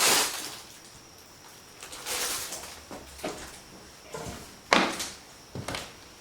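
Scattered handling noises: a brief noisy scrape at the start and another about two seconds in, then a few short knocks, the sharpest and loudest about three-quarters of the way through.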